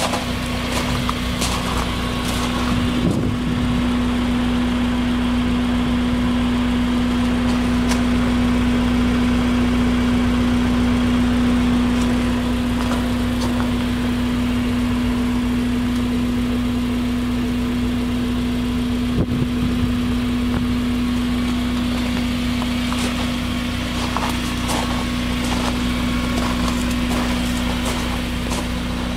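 Ariel Atom 2's Honda four-cylinder engine idling steadily at an even pitch.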